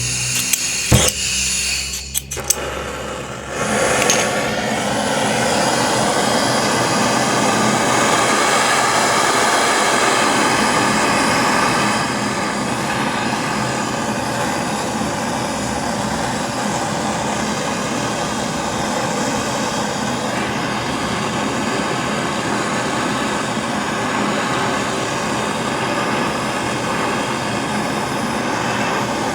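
A few clicks, then a handheld gas torch lights about three and a half seconds in and burns with a loud, steady rushing hiss, heating a refrigerator pipe joint for brazing in an access valve. The flame drops a little in loudness about twelve seconds in.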